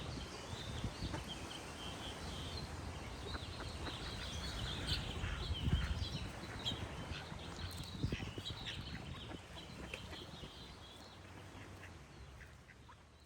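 Ducks quacking among small birds chirping and singing, over a low rumble, fading out over the last few seconds.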